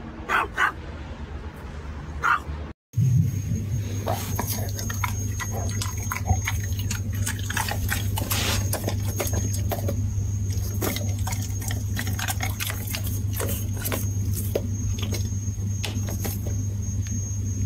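A small dog gives three short, high whimpering calls. After a cut, a steady low hum with a thin high tone runs under many small wet clicks as a golden retriever licks its lips.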